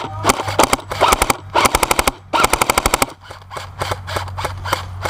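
Airsoft guns firing in an exchange of shots: scattered single shots and short bursts, then, a little over two seconds in, a rapid full-auto burst of about a dozen shots lasting under a second.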